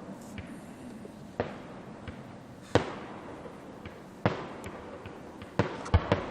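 Aerial firework shells bursting about 3,000 feet away: a sharp bang roughly every second and a half, each trailing off in a fading echo, with two more bangs in quick succession near the end.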